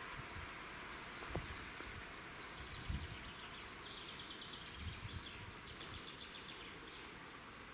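Faint, steady sound of a steam-hauled passenger train going away into the distance, slowly dying down. A small bird chirps in quick runs in the middle, and a few low thumps sound on the microphone.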